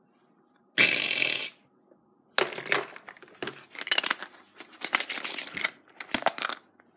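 Hollow plastic surprise-egg capsules being handled and knocked together: irregular clicks, clacks and rustling. A loud, brief noisy rush comes about a second in.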